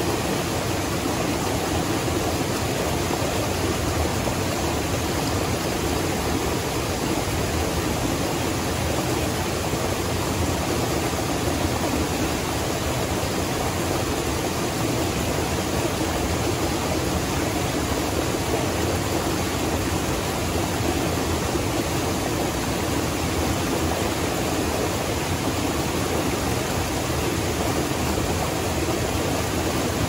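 A small waterfall and mountain stream pouring over boulders: a steady, even rush of water.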